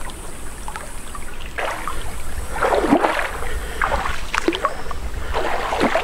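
Legs wading through a knee-deep river, splashing with each stride: four surges of water noise about a second apart, over the steady rush of the flowing water.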